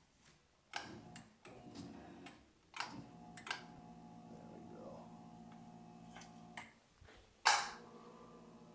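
A few clicks and taps, then a handheld percussion massage gun's motor hums steadily from about three seconds in. The hum stops briefly, and a sharp click near the end sets it running again.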